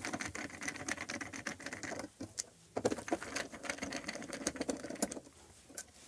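Screwdriver backing out the mounting screws of an old toggle light switch: a rapid run of small scratchy clicks. It pauses briefly about two seconds in and stops about five seconds in.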